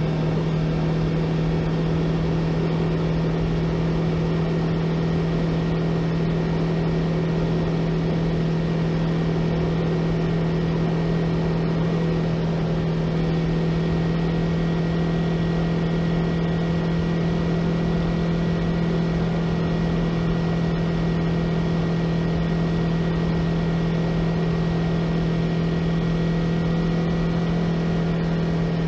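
Yamaha YZF-R3's parallel-twin engine running at steady revs while the motorcycle cruises, heard onboard with wind and road noise around it. The engine note holds one even pitch with no revving or gear changes.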